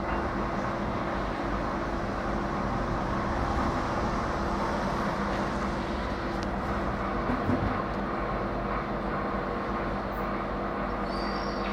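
Steady mechanical hum from a running motor or fan, several even tones over a constant rushing noise, with a light knock about seven and a half seconds in.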